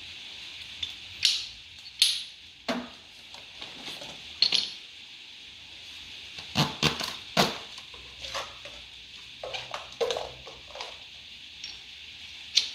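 Steel tap adapters and a tap holder clinking and knocking against each other as they are handled and fitted together: a run of sharp, irregular metal clinks with a brief ring, several close together about halfway through.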